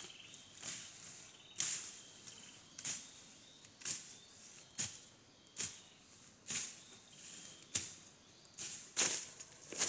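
Machete slashing through ferns and undergrowth: a run of sharp swishing cuts, about one a second.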